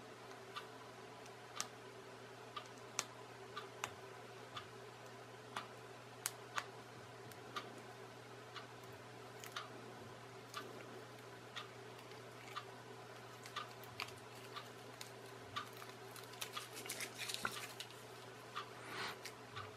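Light clicks and taps of small plastic kit parts being handled and fitted, with a regular tick about once a second and a denser spell of rustling and clicking near the end, over a faint steady hum.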